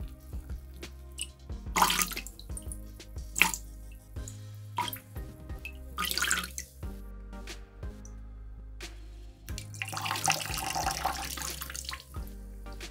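Wet foam sponge squeezed and kneaded in the hands over a bowl of water, squelching with water gushing and splashing out in bursts, the longest near the end; soft background music underneath.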